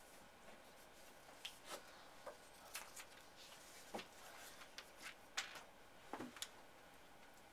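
Faint, scattered clicks and rustles, a dozen or so small handling noises, over a quiet room.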